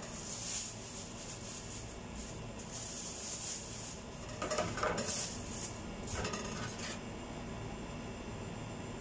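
Kitchen knife being sharpened, its steel blade scraped against a sharpening stone in several strokes that stop about seven seconds in.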